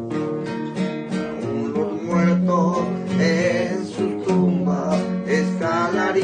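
Acoustic guitar strummed and plucked in a slow song, with a voice singing long held notes over it from about two seconds in.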